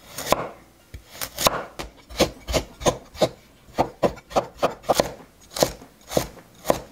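A Chinese cleaver cutting a carrot on a wooden chopping board: an uneven run of sharp knife strikes on the board, about two to four a second, as the carrot is sliced, cut into strips and diced.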